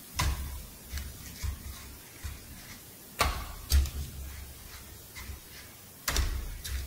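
Handling noise from fried churro rings being picked up and set down on a metal tray and counter: a few sharp clicks and knocks, the loudest about three seconds in and near the end, with soft low bumps between.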